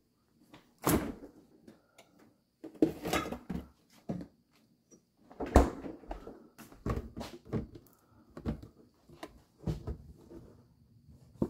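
Kitchen handling sounds: a refrigerator door and a plastic orange-juice jug being handled, giving an irregular string of knocks and thumps.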